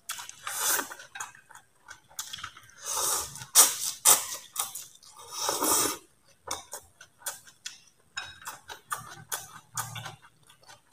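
A person blowing on hot noodle soup held up in chopsticks: about four breathy puffs in the first six seconds, with small clicks and mouth sounds in between.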